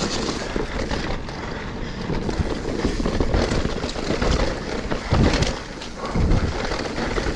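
Mountain bike riding over rough singletrack: tyres on dirt and roots, with frequent knocks and rattles from the bike over bumps, and wind buffeting the microphone.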